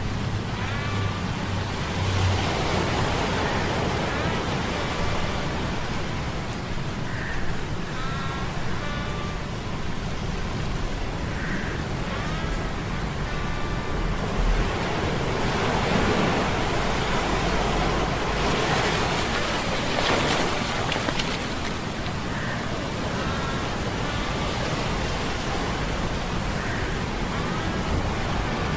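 Ambient mix of stormy sea waves and rushing noise over a low steady hum of metal gears, with short high squeaks every few seconds. The noise swells louder about halfway through.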